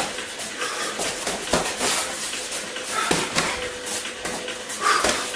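Gloved punches and kicks landing during close sparring: a quick, irregular series of thuds and slaps, with feet shuffling on the mat floor.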